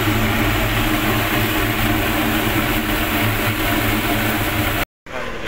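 Cremation furnace's burner flame and blower fan running with a steady, loud drone heard through the open furnace door. The sound cuts off abruptly near the end and comes back quieter.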